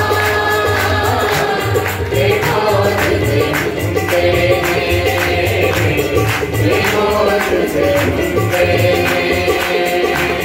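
Harmonium playing a devotional song melody over tabla, with a steady beat of tabla strokes and hand claps keeping time.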